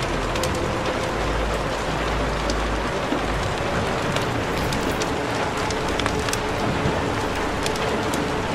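Steady rain-like hiss with many small scattered crackles and pops, over a faint sustained low hum of tones.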